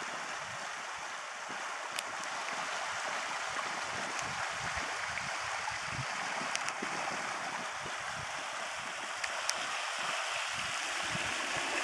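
Shallow rocky stream flowing, a steady even sound of running water.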